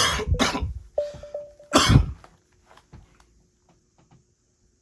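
A man coughing in two bouts, the first at the start and the second about two seconds in, with a short steady tone between them.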